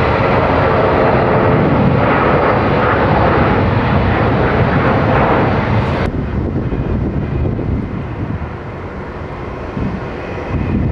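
Jet engines of an Airbus A321 rolling down the runway, loud and steady, cut off abruptly about six seconds in. Then the quieter, steady engine sound of an Airbus A320-family jet on final approach, growing a little louder near the end.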